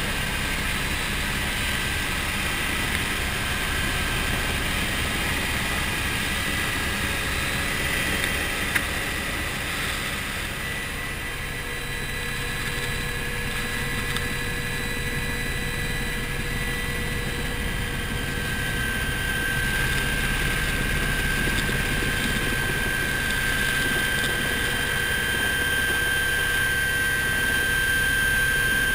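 Helicopter engine and rotor heard from inside the cabin, running steadily with a low, fast rotor beat and a steady high whine that grows stronger in the second half, as the helicopter descends on approach to land.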